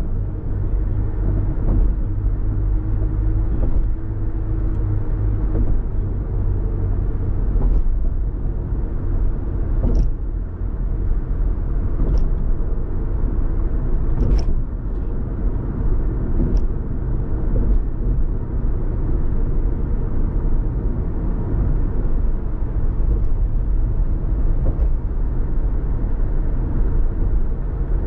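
Steady low rumble of a car driving, mostly engine and tyre noise. Around the middle come a few brief, sharp high ticks.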